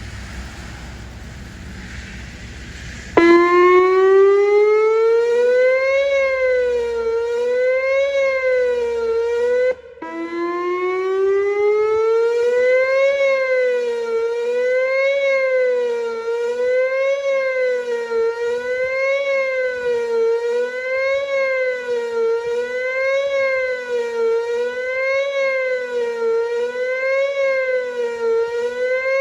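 Wind noise on the microphone, then about three seconds in a Whelen WPS-2910 electronic outdoor warning siren starts abruptly, sweeping up in pitch. It goes into a wavering tone that rises and falls about once a second, the attack signal. The tone cuts out for a moment near the ten-second mark, then sweeps up again and keeps wavering.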